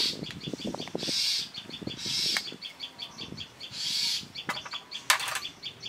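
Birds calling: a steady run of short, high chirps, with a louder, noisier call every second or two. A spoon clicks softly against a steel bowl in the first second, and there is a sharp click about five seconds in.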